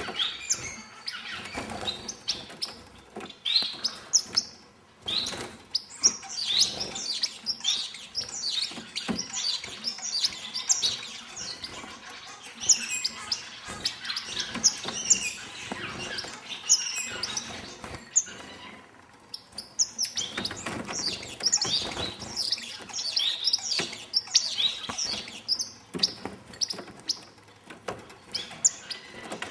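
A flock of star finches chirping, many short high calls overlapping almost without a break, with scattered sharp clicks among them.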